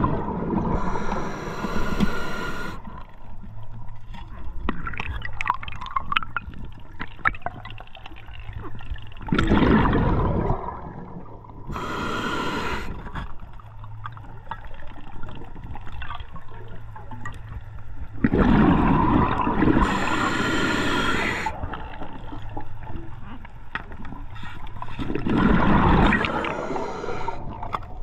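Scuba diver's regulator breathing heard underwater: a gurgling rush of exhaled bubbles followed by a high hiss of inhalation, repeating about four times, one breath every eight or nine seconds.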